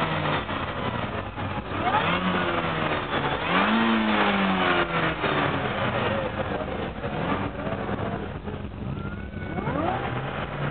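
Mini Cooper S JCW's supercharged four-cylinder engine revved repeatedly, about four times, its pitch climbing and falling back with each rev.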